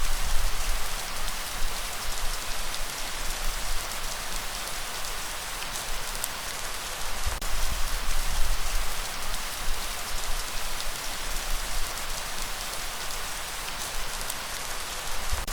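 Steady rain falling, an even hiss with scattered drop ticks and a low rumble that comes and goes.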